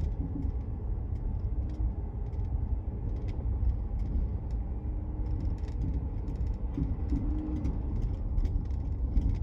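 Cabin sound of a 2019 Ford F-150 SuperCrew rolling slowly over uneven pavement, heard from the back seat: a steady low rumble with thuds, clicks and creaks scattered throughout. These are the thumping noises the owner suspects come from a suspension issue.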